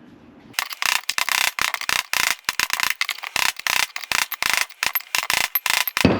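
Rapid, irregular metal-on-metal hammer strikes with a ringing edge, driving a worn wheel-bearing race out of a Chevy C10 front hub. They start about half a second in and stop just before the end.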